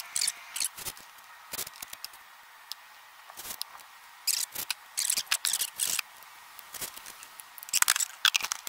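Irregular short rubs, scrapes and clicks of hands handling closed-cell foam, rubber strips and tools on a plywood seat board, with the loudest cluster near the end.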